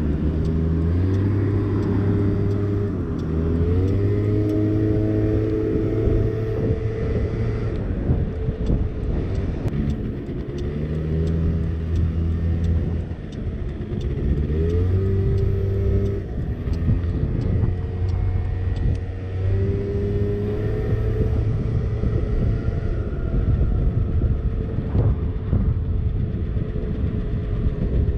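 Small 50cc scooter engine running under way, its pitch climbing several times as it accelerates, then holding or dropping back as it eases off.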